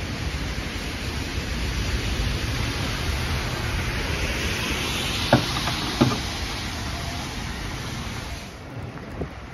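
Vintage electric tram rolling slowly over wet street rails, with a steady hiss from the wet running. Two sharp clunks come about five and six seconds in as its wheels pass over the track switch. The sound turns quieter near the end.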